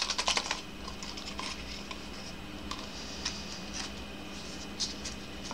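Folded paper slips rustling as one is drawn from a small pot, then a few faint scattered crinkles and clicks as the slip is handled and opened.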